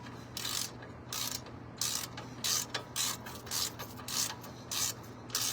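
Hand ratchet wrench turning a brake caliper bolt, its pawl clicking in short strokes about twice a second as the bolt is run down.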